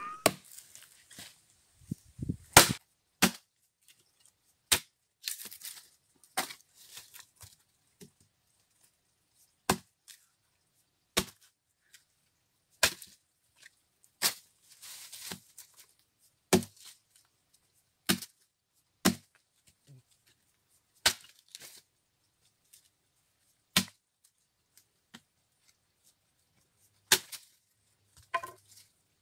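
A blade chopping into a fallen log: about seventeen sharp chops into wood, spaced irregularly a second or two apart.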